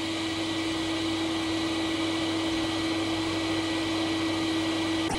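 Electric air blower running steadily, blowing a fast jet of air through a nozzle: an even rushing hiss with a constant motor hum. A light click near the end.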